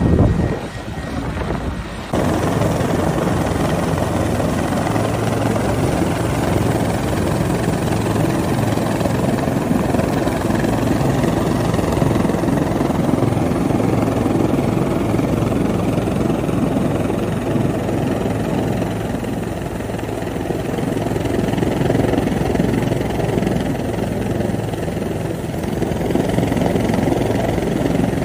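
Helicopter running steadily, a loud continuous drone, with a short drop in level about a second in.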